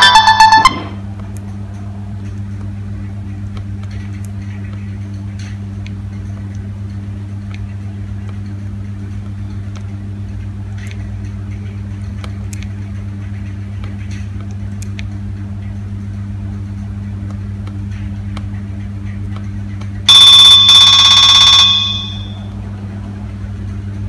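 A Nokia 3220 ringtone playing from the phone's speaker stops under a second in. A steady low hum follows, with faint clicks of the phone's keypad. About 20 seconds in the phone sounds a brief, very loud electronic alarm-like tone for about a second and a half, a tone previewing as the gallery is scrolled.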